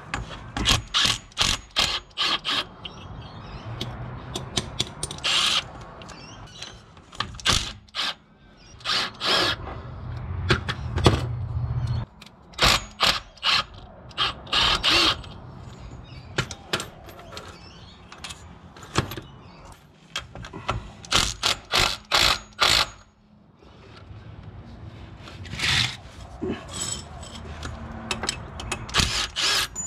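Hand tools working on the Vitara's front diff fittings: irregular metal clicks and knocks, with quick runs of ratchet-like clicking, over a low hum that comes and goes.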